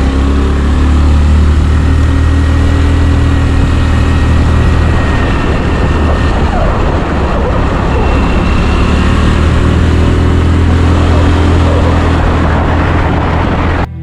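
Steady, loud rumble of a moving road vehicle, running unchanged until it cuts off suddenly at the end.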